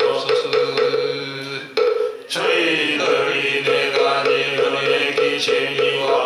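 A hall full of Buddhist monks chanting a vow text in unison, slowly and evenly, kept in time by a moktak (wooden fish) struck with steady clacks about four to five a second. The chant and strokes break off briefly about two seconds in, then resume.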